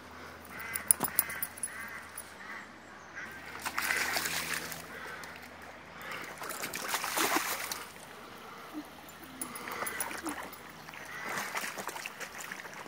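Birds calling in runs of short, repeated calls, with two longer squelching swells of wellington boots through wet mud about four and seven seconds in.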